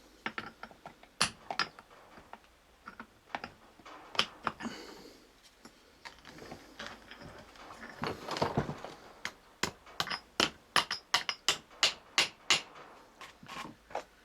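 Sharp metal clicks and taps from working the parts of a Toyota 4Runner driveshaft U-joint (cross and needle bearings) together during assembly. Irregular at first, then a run of evenly spaced taps, about three a second, in the second half.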